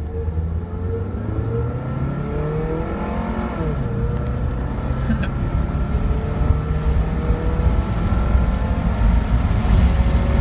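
1994 Honda Prelude's 2.2-litre four-cylinder engine accelerating hard from a standstill in a 0-60 run, heard from inside the cabin. Its pitch rises steadily, drops once a few seconds in as the automatic gearbox shifts up, then climbs again.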